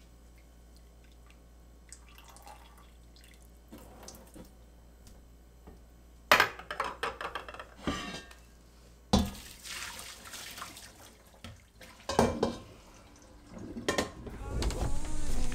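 Dishes and pans clattering at a kitchen sink, with water running from the tap in short spells, after a quiet start.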